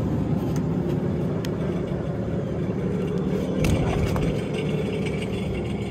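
Yamaha jet boat inboard engine idling steadily, just started for a freshwater flush.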